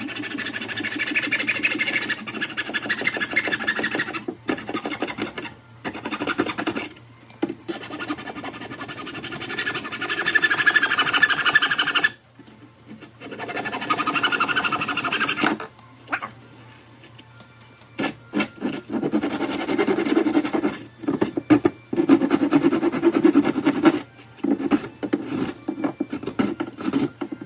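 Rasping, scraping strokes of a hot plastic-welding iron worked over a plastic grass catcher, in runs of a few seconds with short pauses between them. A faint steady low hum runs underneath.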